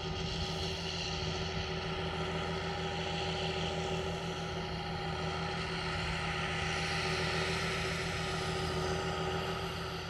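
Heavy diesel farm machinery running steadily, a constant engine hum with a pulsing low note and several steady higher tones.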